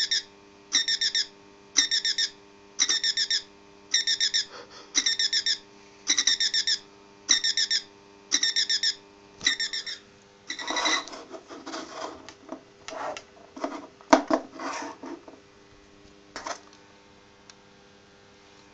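A battery alarm clock's electronic alarm beeping, a burst of quick warbling beeps about once a second; the clock is running on power from a copper pickup coil wired into its battery compartment. The beeping stops about ten seconds in, followed by a few seconds of knocking and rubbing as the plastic clock is grabbed and handled.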